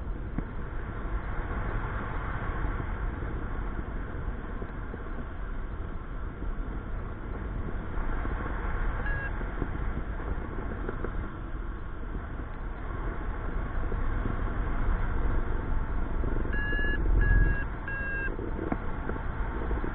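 Steady wind rushing over the microphone of a paraglider in flight. A flight variometer gives short high beeps, once about nine seconds in and then in a quick run of four near the end, the sound it makes when it signals rising air.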